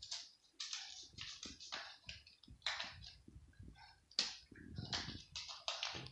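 Two cats chewing dry kibble: a quick, irregular run of crisp crunches.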